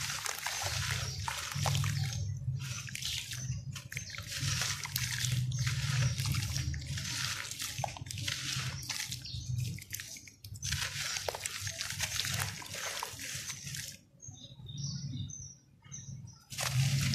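Lumps of dry red dirt crushed and crumbled by hand into a basin of muddy water: gritty crumbling and grains falling into the water, with sloshing and splashing. It comes in stretches of a few seconds with short pauses between, and is quieter and patchier near the end.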